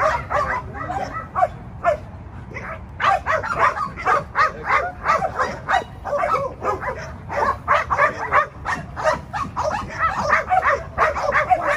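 Young Malinois-type protection dog whining and yipping in quick, high-pitched runs as it holds a down while a decoy in a bite suit moves around it, with a short lull about two seconds in.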